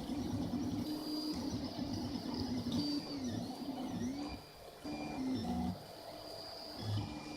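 Stepper motors of a Smartrap RepRap 3D printer whining as the print head and axes move, the tone holding steady on straight runs and swooping down and back up whenever a move slows and reverses. The pitch jumps between levels as the moves change, with a short quieter patch past the middle.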